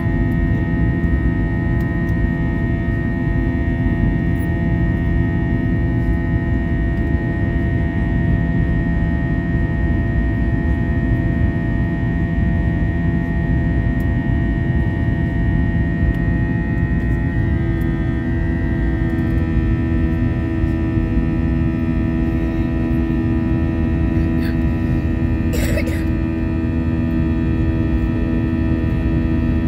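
Airbus A321 cabin noise from over the wing during the climb after takeoff: the steady hum and drone of the jet engines, with several steady tones that shift slightly a little past halfway. A brief click near the end.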